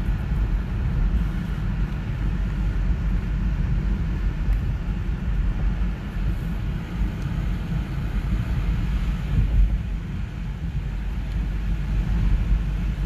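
Steady low rumble and hiss of a car driving on a rain-soaked road in heavy rain, heard from inside the car.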